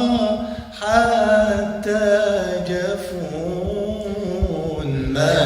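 Male voice singing a long, drawn-out melismatic phrase of an Arabic muwashshah in tarab style. A short breath-break comes about a second in, then the line is held and slowly bends down in pitch before rising again near the end.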